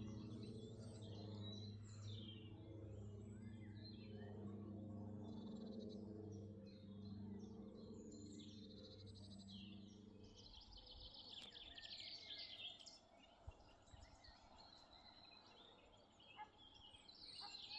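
Birds singing and chirping over a steady low hum that dies away about ten seconds in. Just before the end, the automatic half barrier level crossing alarm starts up: an electronic two-tone warble sounding at its quieter night-mode setting.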